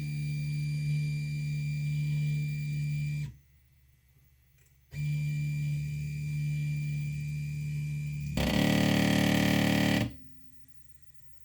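Stepper motor of a Tevo Tornado 3D printer's Z axis whining as it drives, in a steady pitched hum. It stops for about a second and a half, starts again, then near the end turns into a louder, harsher burst lasting about a second and a half before cutting off sharply.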